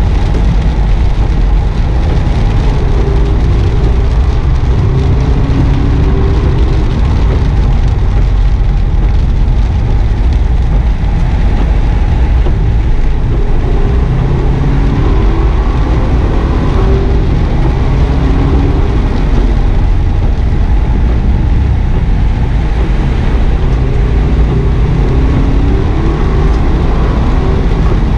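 Subaru WRX S's turbocharged flat-four engine heard from inside the cabin under load at speed, running between about 3,200 and 4,600 rpm in third and fourth gear. Steady tyre noise and spray from the wet tarmac run underneath.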